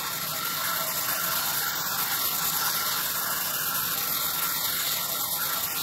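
Sawmill band saw running with its blade cutting lengthwise through a timber slab: a steady, high noise of blade through wood, with a faint steady whine under it.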